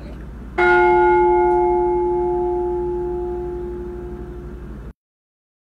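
A single deep bell strike that rings and slowly fades, then is cut off abruptly about four seconds later, leaving silence.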